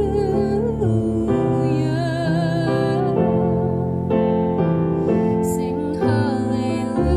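Church music: a solo voice singing a slow melody with vibrato over piano accompaniment, with the chords changing about once a second.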